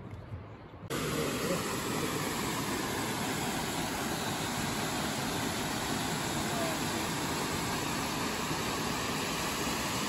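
Steady rushing of water from Cheonjeyeon Falls' third waterfall plunging into its pool, cutting in suddenly about a second in.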